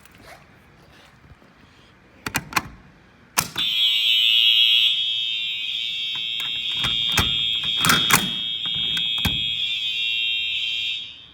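Fire alarm horn sounding during a system test: a few sharp clicks, then a continuous high-pitched tone starting about three and a half seconds in and cutting off near the end, with a few knocks over it.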